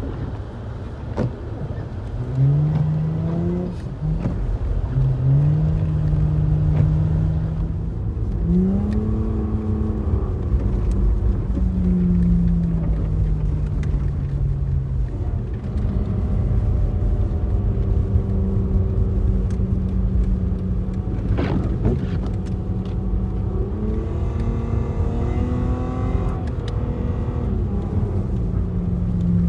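Car engine accelerating over a steady low road rumble. Its pitch climbs and drops back twice as the gears shift up, then holds steady at cruising speed. There is one short knock about twenty seconds in.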